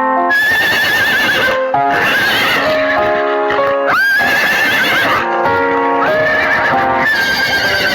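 A horse neighing several times in a row, each whinny high and quavering, over background music with steady notes.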